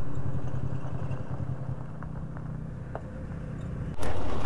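A vehicle engine running with a steady low hum that slowly fades, as if the vehicle is moving away, with a few faint ticks about halfway through.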